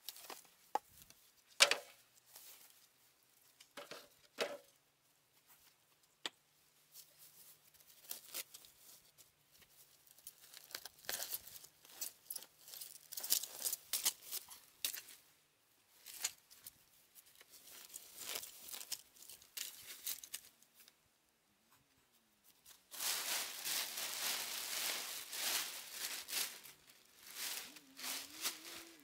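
Thin plastic sheeting rustling and crinkling as it is pulled and bunched up, densest over the last few seconds. A few sharp knocks near the start, the loudest about two seconds in.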